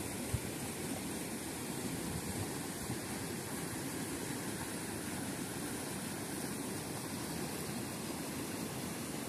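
Mountain stream rushing steadily over rocks, a continuous even wash of water. A brief knock about half a second in.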